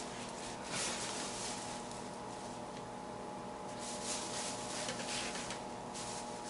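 Quiet room tone: a faint steady hum with a few soft, faint rustles.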